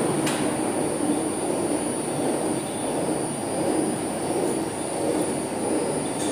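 Granite-stone melangeurs (chocolate and nut-paste grinders) running, giving a steady grinding rumble with a thin, steady high whine above it.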